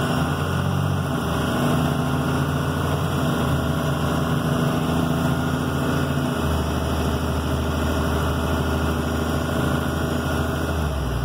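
A 12-valve Cummins 5.9-litre inline-six turbodiesel pulling at light, quarter throttle as the truck accelerates, heard from inside the cab, holding around 1,700–1,800 rpm. The engine note steps once about six seconds in.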